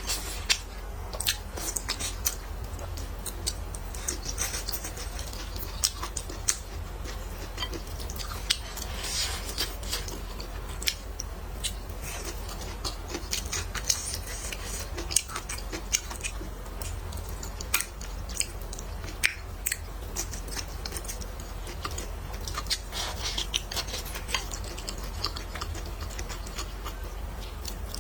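Close-miked chewing and biting of a person eating: irregular clicks and smacks throughout, over a steady low hum.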